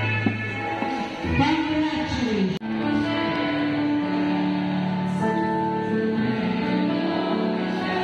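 Slow instrumental music with long held notes. About two seconds in, a falling slide ends in a brief break, and then held chords carry on.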